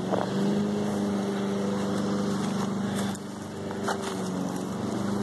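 A motor running steadily with a low, even drone that dips a little past halfway, with a couple of short clicks.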